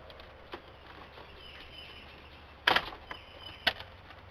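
Plastic retaining clips of the Nissan 240SX's center dash bezel snapping loose as the bezel is pulled off: one sharp crack about two and a half seconds in, then a smaller click a second later.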